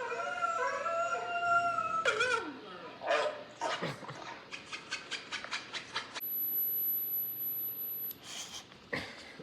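A string of different sound effects. First a drawn-out, howl-like call for about two seconds, then a falling glide, then a quick run of clicks about five a second, and a thin, very high steady tone. Two short noisy bursts come near the end.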